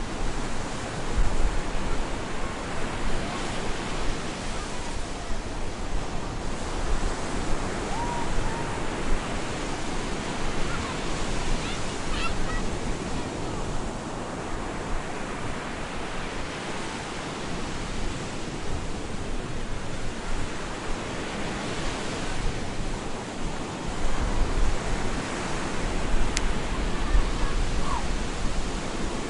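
Stormy surf: waves breaking on a beach in a continuous rushing wash that swells and ebbs every several seconds, with low rumbling bursts about a second in and again near the end.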